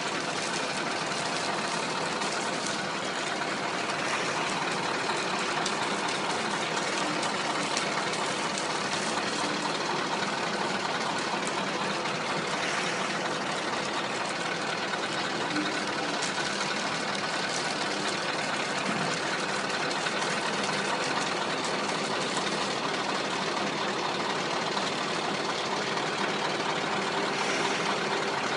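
Scania logging truck's diesel engine idling steadily.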